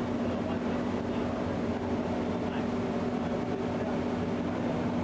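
Cruise boat's engine running steadily: an even low hum over a constant rushing noise.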